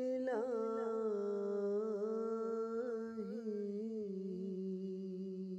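Urdu devotional hamd sung by a single voice as background music, one long note held with wavering ornamental turns, fading near the end.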